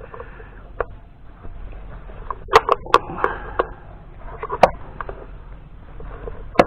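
Scattered sharp clicks and clinks of hand tools on metal while loosening the small 8 mm hold-down bolts of an engine's ignition coils. There is a cluster of knocks around the middle and a single click near the end.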